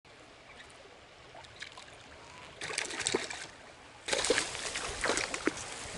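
Water of a small river flowing and trickling, faint at first, briefly louder near the middle, then louder from about four seconds in, with scattered small clicks and gurgles.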